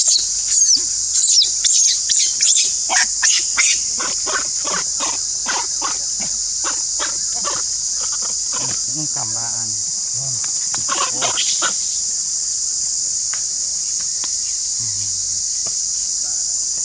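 Steady high-pitched drone of insects. Over the first few seconds it is overlaid by a run of short, loud, high squeaks, about one or two a second, followed by softer quick chirps and clicks that stop about two-thirds of the way through.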